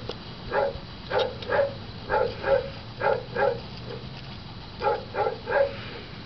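A dog barking repeatedly, in quick groups of two or three short barks with brief pauses between the groups.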